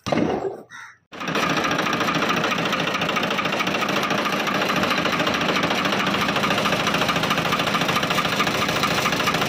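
Farmtrac 60 three-cylinder diesel engine running steadily, heard close at the fuel injection pump, with a fast, even clatter. A short, uneven sound comes first; the engine starts about a second in.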